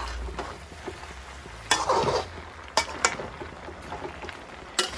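Metal spatula stirring chunks of ash gourd and chicken in a steel wok, with a few sharp clacks of the spatula against the pan over a low frying sizzle.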